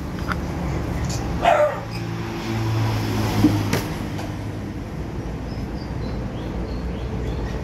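A dog gives a short bark about one and a half seconds in, over a steady low rumble of road traffic.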